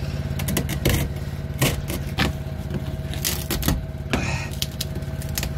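Utility knife blade scraping and scratching along a groove in old fibreglass in quick, irregular strokes, over the steady running of a generator.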